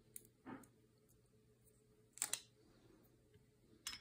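Faint clicks and light taps of small metal parts being handled: a Holosun EPS Carry red dot sight, its mounting plate and screws on a Glock 48 slide. A couple of sharper clicks come about two seconds in and one more near the end.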